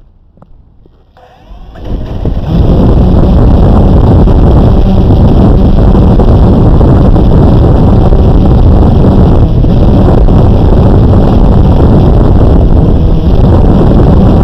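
Blade 350 QX quadcopter's motors spinning up about a second and a half in, then running steadily and very loud with the drone still on the ground, its propeller wash buffeting the onboard GoPro's microphone.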